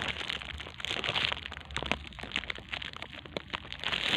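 Plastic packaging crinkling and crackling as it is handled, in many small irregular crackles, while a drinking bottle is worked back into it.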